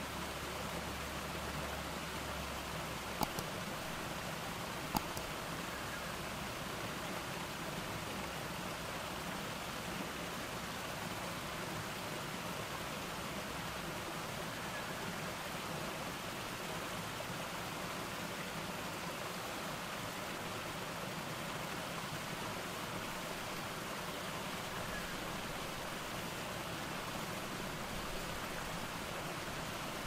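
Small garden cascade: water spilling over several rock ledges into a shallow rocky pool, a steady, even rushing and splashing. Two short clicks, a little after three seconds in and about two seconds later.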